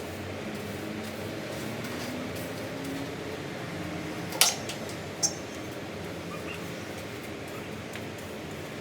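Steady background hum with two sharp knocks a little under a second apart, near the middle.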